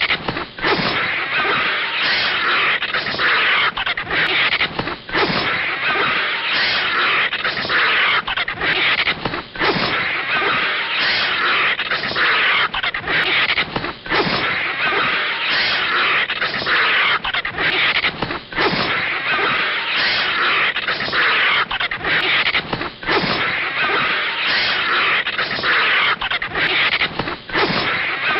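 Cartoon fight sound effects of a vulture attacking a snake: a loud, continuous rough hissing and scuffling noise with animal cries, broken by brief gaps about every second.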